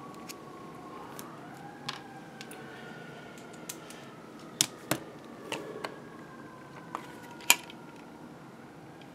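Faint, distant emergency-vehicle siren, which the presenter takes for fire trucks: a drawn-out tone that rises about a second in and then slowly falls. A few sharp clicks come from handling the drive's plastic case, the loudest past the middle and again about seven and a half seconds in.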